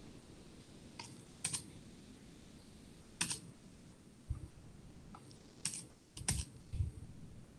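Scattered computer keystrokes and clicks, a few at a time with pauses between, quiet against room tone, with a couple of dull low thumps among them.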